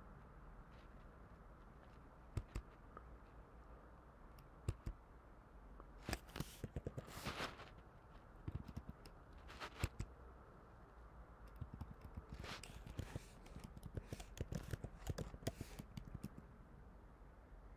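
Typing on a computer keyboard: single key clicks early on, then quick runs of keystrokes as a crossword answer is typed in. A brief rustling noise about six seconds in.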